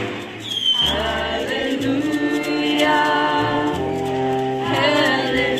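Live band music: several voices singing together over a baritone saxophone, an upright double bass walking from note to note, and drums, with a short dip in the music just after the start.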